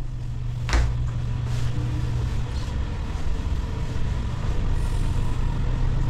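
Steady low hum of a ship's machinery below decks. Footfalls on steel stair treads ring through it, with one sharp knock about a second in and a few fainter steps after.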